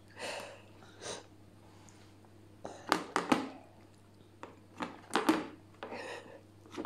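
Metal table knife knocking and clicking against a plastic high-chair tray as a toddler presses it down through a piece of banana: a few sharp knocks about three seconds in and again about five seconds in, with softer rustles between.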